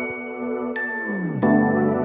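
Background music: soft chimes struck over sustained synth tones, with a falling swoop in the low notes about a second and a half in.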